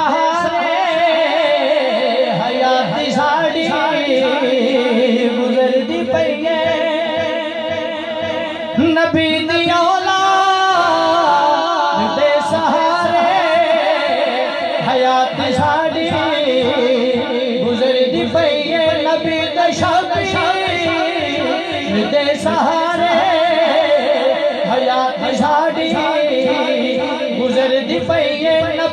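A man singing a Punjabi devotional song (naat) into a microphone through a PA, drawing out long, wavering held notes without clear words.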